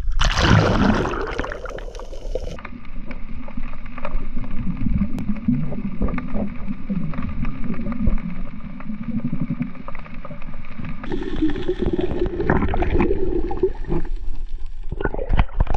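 Water splashing at an action camera as it goes under the sea surface, then the muffled, gurgling rumble of water heard through the camera underwater, with scattered small clicks.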